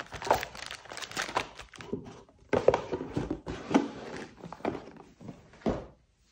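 Hands handling plastic-wrapped card decks and a cardboard board-game box: crinkling, rustling and soft knocks as the components are packed back in and the lid is closed.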